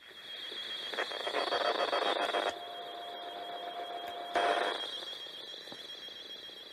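PNI 6500 CB radio on an open channel giving out band static, with a steady high-pitched whistle over it throughout. The static comes and goes, and a second, lower whistle sounds for about two seconds in the middle.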